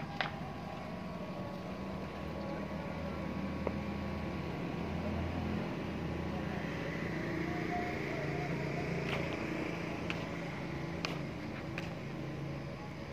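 A motor vehicle engine running with a steady low hum, its pitch shifting a little over time, with a few light clicks.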